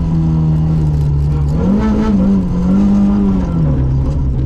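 Stage rally car's engine heard from inside the cabin, pulling through a bend. The revs rise about one and a half seconds in, hold with a small dip, then drop again near the end.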